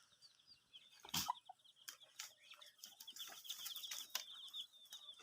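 Chickens clucking faintly, with a fast run of high chirping or peeping going on continuously.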